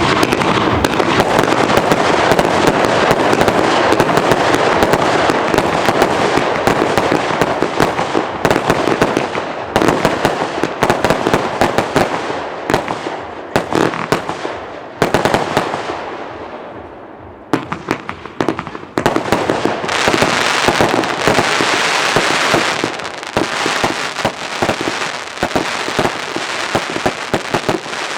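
Vulcan 'Mixed Emotions' consumer firework going off: a dense, continuous barrage of shots and bursts for the first several seconds. Then come separate sharp bangs, and a lull near the middle where a hiss dies away. A dense run returns about two-thirds of the way in, followed by more rapid bangs.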